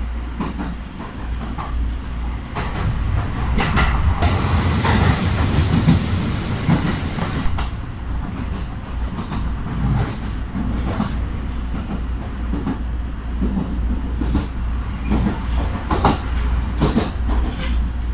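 JR Uchibō Line train running, with a steady low rumble and wheels clicking over rail joints. A hiss starts about four seconds in, lasts about three seconds, then stops suddenly.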